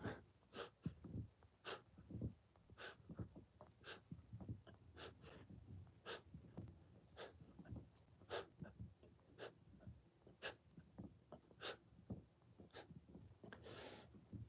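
A man's short, sharp exhaled breaths, about one a second, in time with his push-up reps, with a longer breath near the end.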